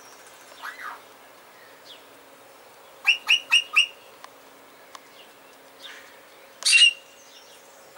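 A garden bird calling: a faint call near the start, then a quick series of four sharp, piercing notes about three seconds in, and a single loud call near the end.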